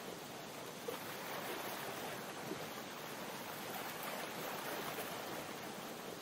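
Faint, steady rush of ocean surf.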